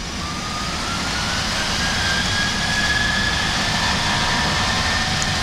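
Boeing 737-700's CFM56-7B turbofans spooling up to takeoff thrust, heard in the cockpit: a whine that rises in pitch over the first two or three seconds and then holds steady, over a constant rumble.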